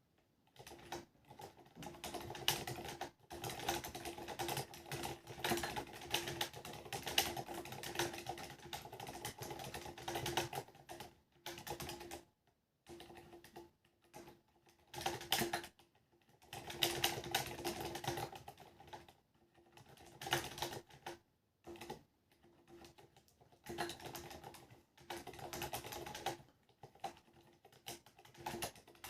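Typing on a Ducky One 2 mechanical keyboard with Cherry MX Silent Black switches and SA-profile ABS keycaps: fast runs of soft, muted keystrokes in bursts of a few seconds, with short pauses between. The space bar is very rattly.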